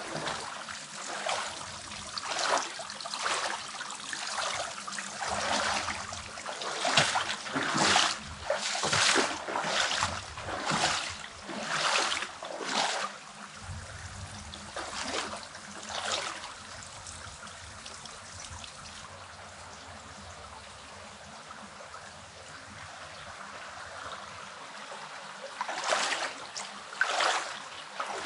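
Stream water trickling over rocks, with a run of short crunching noises about once a second, footsteps on stones and gravel, through the first half and again near the end.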